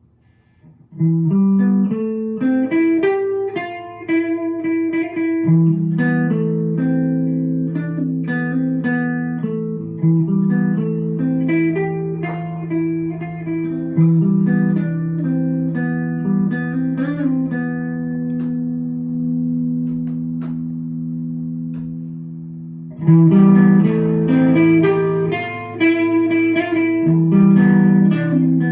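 Electric guitar played through a home-built, Champ-style amplifier in progress: picked notes and chords ringing through the amp, starting about a second in. Midway a chord is left to ring and fade, then the playing picks up again near the end.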